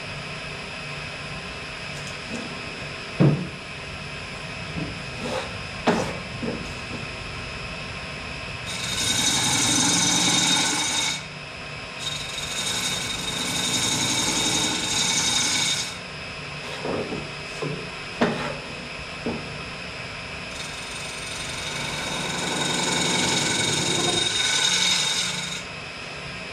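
Wood lathe running with a steady motor hum while a hand-held turning tool is pressed against the spinning wooden bowl three times, each pass a harsh scraping hiss lasting a few seconds as shavings come off. A few short knocks of wood on wood fall between the passes.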